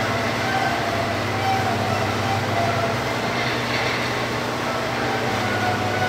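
The 60-inch telescope's observatory dome rotating: a steady rumble with a constant low hum underneath.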